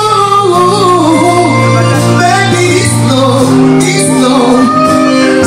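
Live band music with a wordless, melismatic vocal line over sustained accompaniment.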